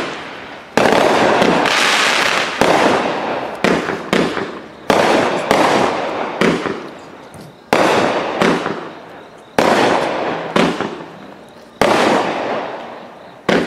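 A consumer multi-shot fireworks cake fires shot after shot into the air, about ten in all, roughly one every one to two seconds. Each is a sudden bang that dies away over a second or so.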